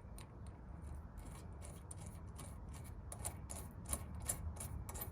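Hand tap cutting threads into a metal burner fitting: a run of small, irregular metallic clicks and scrapes, coming faster and a little louder from about three seconds in.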